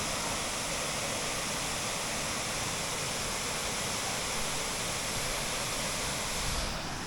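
Florence Falls waterfall: a steady rush of falling water that cuts off abruptly near the end.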